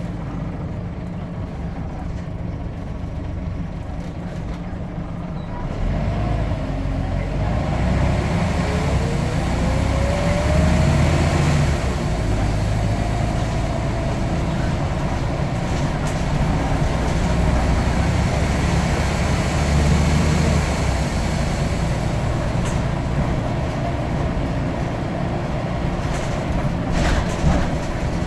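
Scania N94UD double-decker bus's diesel engine, quieter at first, then pulling harder about six seconds in with a rising whine, then running on under load with swelling engine note. A few sharp clicks near the end.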